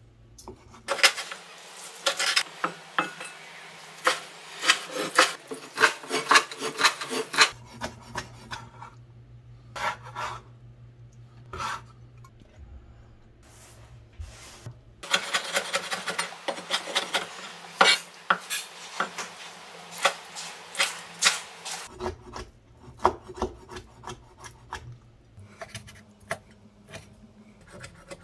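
Chef's knife cutting boiled cow tripe and then pork intestine on a wooden chopping board: quick runs of knife strokes knocking on the board, in bursts with short pauses.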